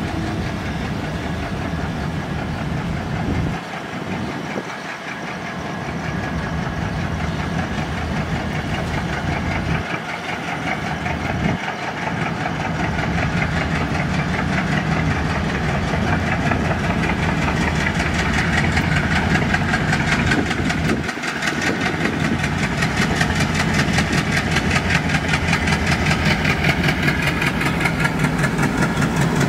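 WDM-3A diesel-electric locomotive's ALCO 251 sixteen-cylinder turbocharged engine running under load as it hauls a freight train, growing louder as it approaches. A rapid, even engine beat comes through as it passes close near the end.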